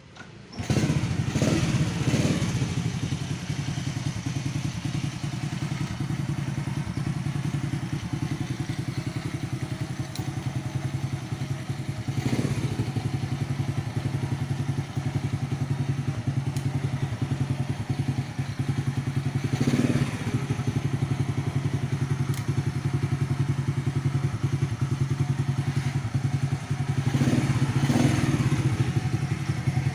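A motorcycle's Honda Supra four-stroke single-cylinder engine starts about half a second in and then idles steadily with an even pulse, with a few brief louder moments.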